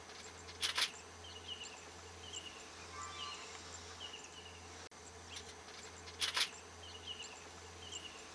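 Outdoor insect chorus: short high chirps repeating about twice a second over a steady buzz, with two brief loud bursts of noise, one near the start and one about six seconds in.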